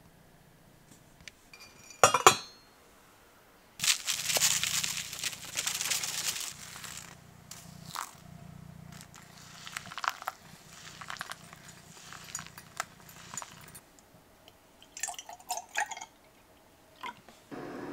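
Hot water poured from a kettle in a thin stream onto coffee grounds in a paper-filter dripper. It starts suddenly about four seconds in and goes on in weaker spurts, after a single sharp clink about two seconds in. Near the end come a few light clinks and knocks.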